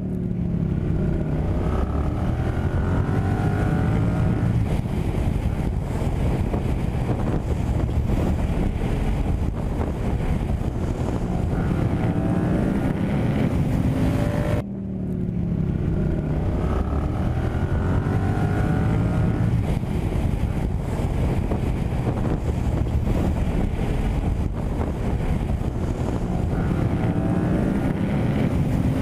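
Yamaha MT-07's parallel-twin engine accelerating at highway speed, its pitch climbing in several rising sweeps as it pulls up through the gears, under heavy wind noise on the microphone.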